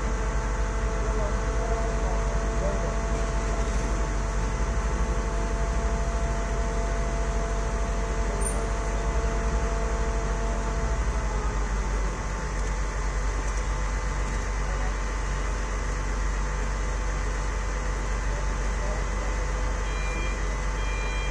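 Heavy construction machinery running steadily: a deep engine drone with steady whining tones, some of which drop out about halfway. Near the end, a vehicle's reversing beeps start.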